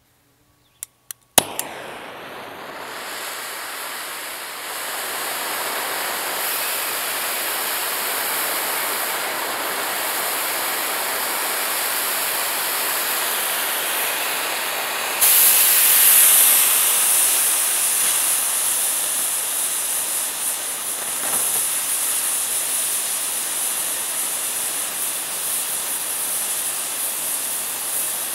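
A few sharp clicks and a pop as an oxy-fuel cutting torch on a Mathey Dearman pipe beveler is lit, then the torch's steady hiss as it burns into a 30-inch steel pipe. The hiss steps up sharply louder about halfway in.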